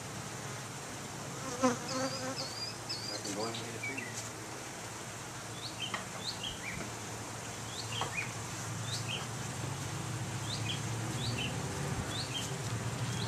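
Italian honey bees humming steadily around the entrance of a top bar hive, the buzz growing louder near the end. Short high bird chirps repeat throughout.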